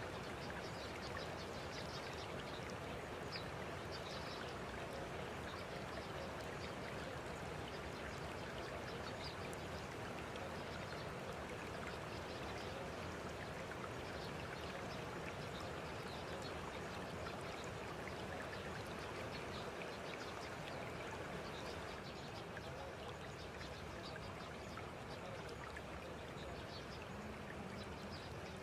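Steady water-like rushing noise, as of a stream or rain, with many faint high ticks scattered through it.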